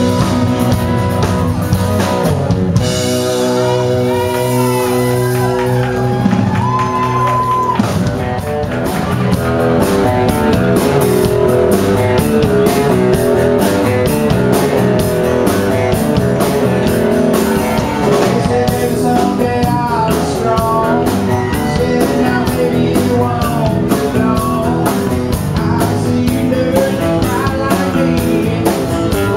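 Live country-rock band playing: acoustic guitar, electric guitar, bass and drums, with singing. A few seconds in, the drums drop out while chords ring on, and about eight seconds in the full band with drums comes back in.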